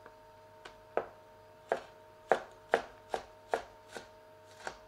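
Chinese cleaver chopping a red chilli on a plastic chopping board: a series of about ten sharp knocks, unevenly spaced at roughly two a second.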